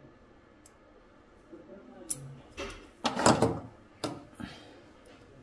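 Small plastic clicks and handling noise as a lithium coin cell is pressed into the plastic battery holder of a Mitutoyo Digimatic indicator. There are sharp clicks about two and four seconds in, and a louder scraping rustle about three seconds in.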